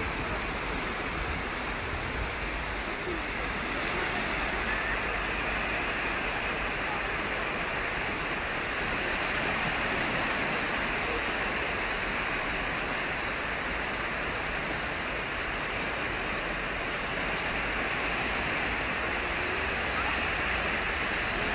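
Small sea waves breaking and washing up the sand at the shoreline: a steady, even rush of surf.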